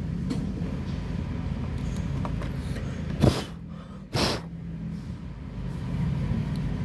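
Two short puffs of breath, about a second apart, blown onto an opened TV mains power switch to clear the dust packed in its contacts, over a steady low background rumble.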